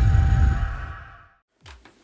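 Tail of a video's intro soundtrack: a deep rumbling sound effect with faint steady tones, fading out over about a second and cutting to silence, with a couple of faint knocks just after.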